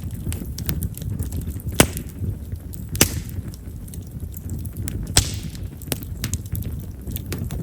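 Chestnut-wood bonfire crackling: scattered sharp pops and ticks over a low, steady rumble of flame. Three louder pops come about two, three and five seconds in, the last two followed by a short hiss. Chestnut is a wood known for popping because of its large vessels.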